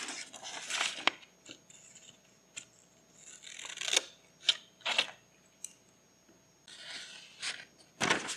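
Paper being handled at close range while a journal is decorated: short bursts of rustling and crinkling, with several sharp clicks and taps. The loudest click comes near the end.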